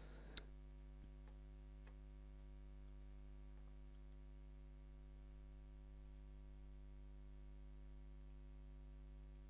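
Near silence: a steady electrical hum with a few faint computer mouse clicks in the first two seconds.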